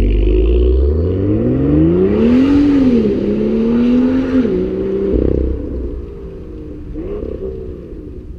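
BMW M2's turbocharged inline-six running through a Megan Racing Supremo stainless cat-back exhaust with the exhaust valve deleted. It idles, then pulls away about a second in: the exhaust note climbs in pitch, drops, climbs again, and then fades as the car drives off down the street.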